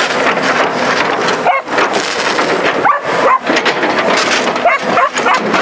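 Dog barking repeatedly in short calls at an excavator, over the steady noise of the running machine.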